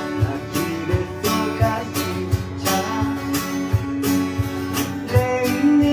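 Live acoustic band: acoustic guitars strummed over a steady cajon beat, with low thuds about twice a second.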